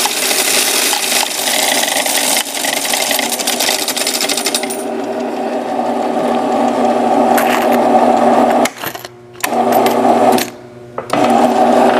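Electric coin counting machine running, coins clattering through it thickly for the first few seconds, then mostly the motor whirring. It stops briefly twice a few seconds from the end.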